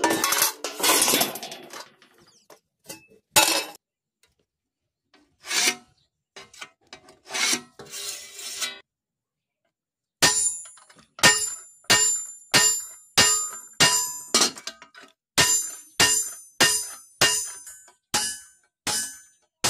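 Iron sheets clattering and scraping as they are shifted on a steel bar. About ten seconds in, a hammer starts striking a chisel held against the edge of an iron sheet on the bar: about fifteen ringing metal blows, roughly one every 0.6 s.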